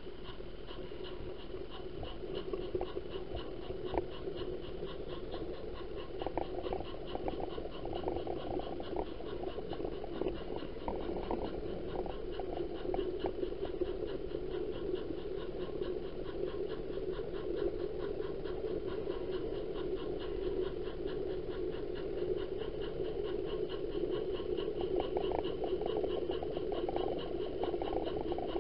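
Model freight train running along its track, heard from a camera riding in one of its cars: a steady whirring hum with many small clicks as the wheels run over the rails.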